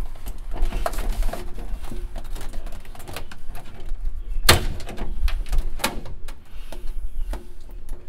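Scattered clicks and knocks of hands handling wiring and parts under a car's dashboard, with the sharpest click about four and a half seconds in, over a steady low hum.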